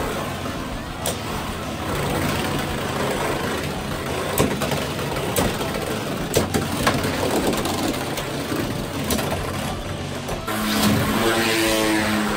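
Viper Tail and Knight Lance Beyblade X tops spinning on a plastic stadium floor, a steady whir broken by sharp clicks each time they clash, several times. Music with held notes comes in near the end.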